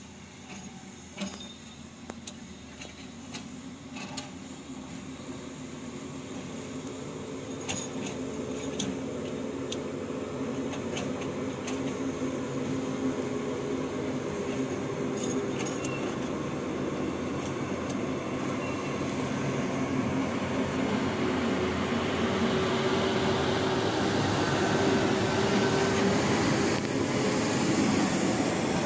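Heavily loaded logging truck's diesel engine pulling slowly closer, growing steadily louder until it passes close by near the end. A thin high squeal sits over the engine note from about a third of the way in, and a few sharp knocks come early on.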